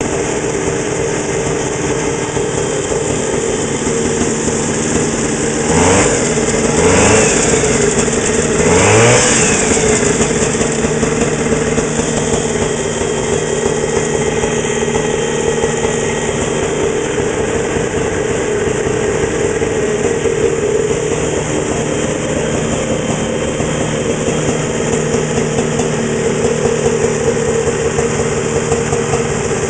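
JLO 399 two-stroke snowmobile engine in a 1969 Mercury 250 running at idle on its first run after being installed. It is revved up briefly three times, about six, seven and nine seconds in, and settles back to a steady idle.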